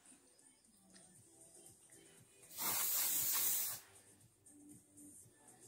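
Aerosol hairspray can spraying: one steady hiss lasting about a second, a little past the middle.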